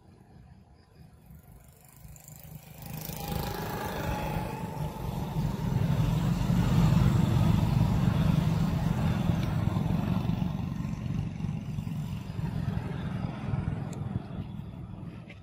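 A motor vehicle passing close by: its rumbling, rushing noise swells about three seconds in, is loudest about halfway through, then slowly fades.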